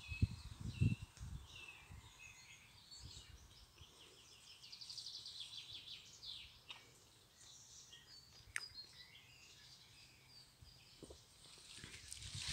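Small birds chirping and trilling, with quick high notes, short downward sweeps and a fast trill around the middle. A few low thumps in the first second and a single sharp click later on.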